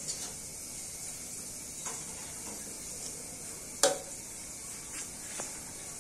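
Fried rice being stir-fried in a wok: a metal spatula scrapes and clanks against the pan a few times, the loudest clank about four seconds in, over a steady sizzling hiss.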